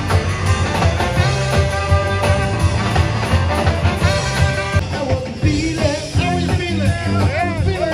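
Live rock-and-roll band playing through a PA, electric guitars and drums keeping a steady beat.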